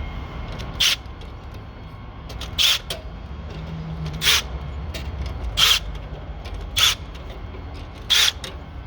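A powered wire-nut twisting tool spinning wire nuts onto spliced wires in six short bursts, each under half a second, about every second and a half: one burst per nut as it is run down tight.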